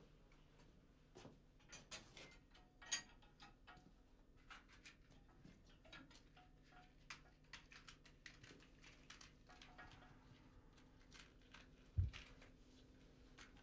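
Faint, irregular clicks and taps of small objects being handled by hand, over a steady low hum, with one dull thump about twelve seconds in.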